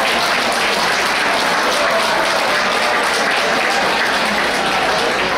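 A crowd applauding: many people clapping at once, dense and steady.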